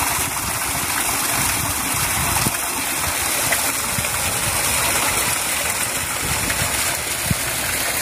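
Steady rush of a small cascade of water running over and between rocks, with the stream running low.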